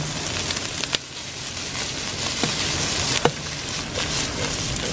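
Shredded meat frying in oil in a pan over a wood fire, a steady sizzle with scattered pops and crackles.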